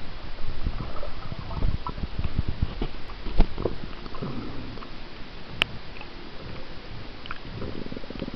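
Muffled underwater noise picked up by a camera held below the surface: low, irregular rumbling and sloshing with scattered sharp clicks, the loudest a little before halfway through.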